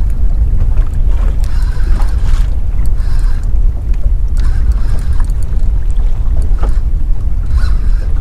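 Wind rumbling heavily on the microphone on a small open boat at sea, with short clicks and rattles now and then.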